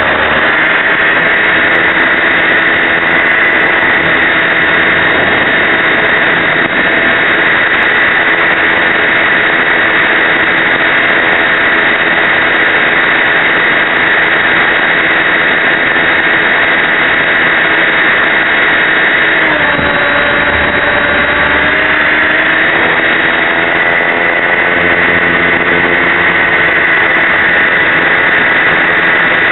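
Align T-Rex 550E electric RC helicopter in flight, heard close up through its onboard camera's microphone: a loud, steady whine from the motor and gears over rotor and vibration noise. About twenty seconds in, the pitch dips and then climbs back over a few seconds as the load on the rotor changes.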